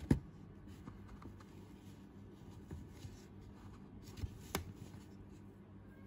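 A Zippo lighter being handled and set into its plastic display case by gloved hands: a sharp click just after the start, light rustling and small taps, then another click about four and a half seconds in, over a faint steady low hum.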